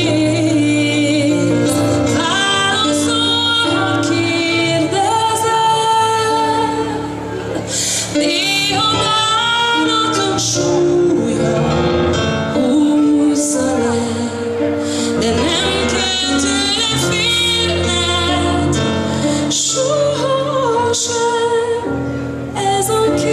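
A woman singing a pop ballad live into a handheld microphone over instrumental accompaniment, with long held notes.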